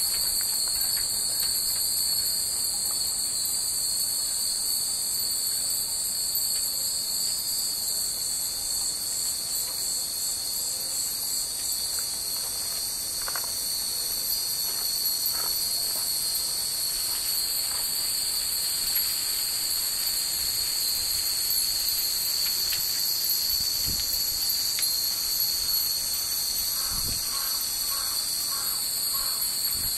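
Cicadas singing steadily, the loudest sound throughout, with a few faint rings from the hanging Japanese wind chimes (furin) now and then.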